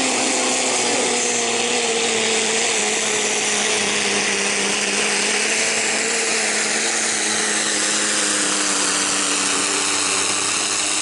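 Mini pulling tractor's engine running at full throttle under load as it drags the weight sled, a loud, steady engine note that holds its pitch.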